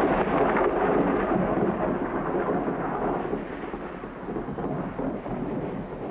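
A long roll of thunder, loudest at the start and slowly dying away, with rain falling.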